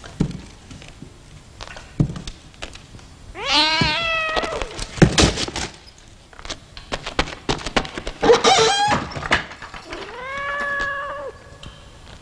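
A cat meowing three times in long, drawn-out calls, the first rising then falling, the last held steady. Sharp knocks and clatters come in between.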